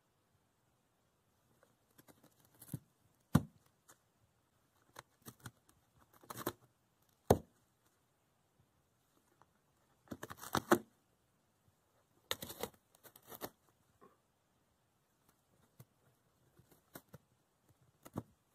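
A cat biting and tearing at the edge of a cardboard box: irregular crisp rips and crunches of cardboard, some single and some in short clusters, with quiet gaps between.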